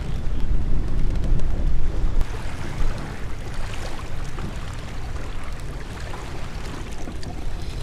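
Wind buffeting the microphone on a kayak on open water, a heavy low rumble for about the first two seconds, then easing to a lighter steady hiss with a few faint small clicks.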